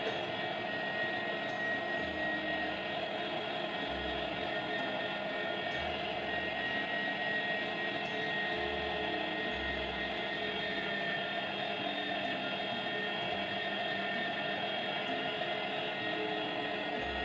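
Electric meat grinder running steadily under load as it grinds tomatoes into pulp.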